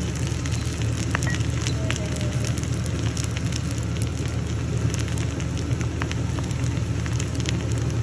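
Fried rice with egg, yardlong beans and meat sizzling in a hot wok, a dense crackle of many small pops over a steady low hum.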